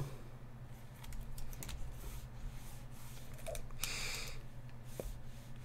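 Light, irregular clicks and taps of a computer keyboard and a pen on a drawing tablet while digitally inking. There is a brief scratchy rasp about four seconds in, over a steady low hum.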